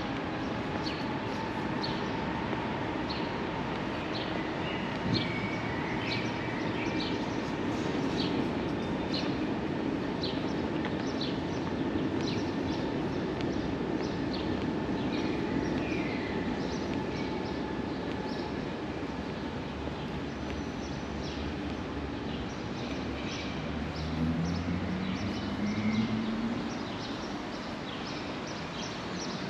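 Steady rumble of a train passing on nearby railway lines, with a faint tone drifting slowly up and down, over the regular footsteps of a person walking on pavement. Near the end a motor briefly rises in pitch.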